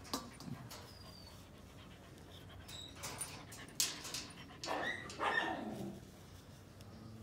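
A dog making a few short, soft vocal sounds, the strongest near five seconds in, while a metal flea comb is drawn through its fur to pull out ticks.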